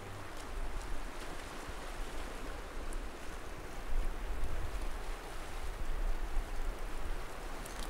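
Sea ambience: a steady wash of small waves and moving water, with a low rumble underneath.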